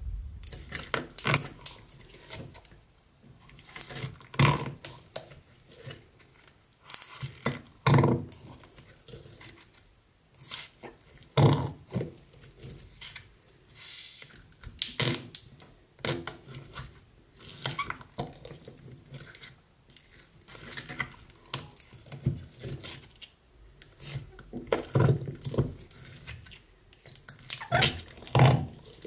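Sticky slime being pressed and poked by hand, making irregular clusters of sticky clicks and crackles with short pauses between them.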